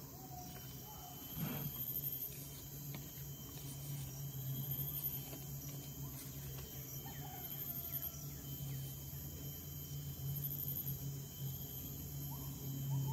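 Garden ambience with insects chirping steadily, a high thin call pulsing about every two seconds, and a brief soft rustle of banana leaves handled on a wooden table near the start.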